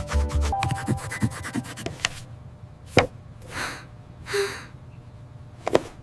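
Cartoon sound effects: a quick run of light taps over the first two seconds, then a sharp snap about three seconds in. Two short breathy whooshes follow, and another snap comes near the end.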